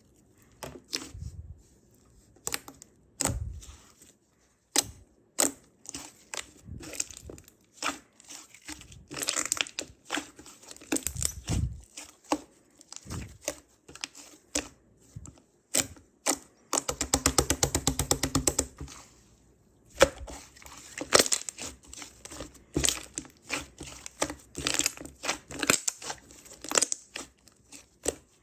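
Purple slime full of trapped air bubbles being squished and poked by hand: irregular sticky clicks, crackles and small pops. About two-thirds through comes a fast, even run of clicks lasting about two seconds.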